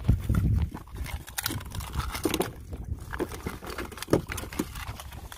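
Bay scallop shells clicking and clattering against each other inside a mesh bag as it is lifted and handled.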